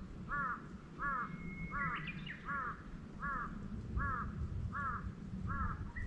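A bird calling a long, even series of short harsh notes, about one every three-quarters of a second, over a steady low rumble; a brief higher whistle cuts in about two seconds in.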